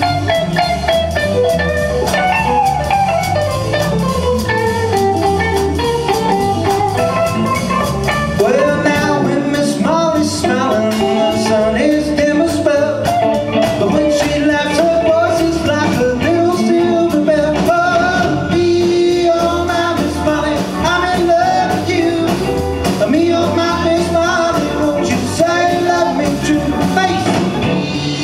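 Live western swing band playing: a bowed fiddle carries a sliding melody over electric guitars and a drum kit, at a steady swing beat.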